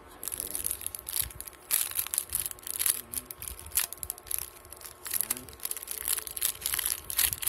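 A thin clear plastic packet and its folded paper instruction sheet crinkling as they are handled and pulled apart. Irregular sharp crackles start a moment in and keep on.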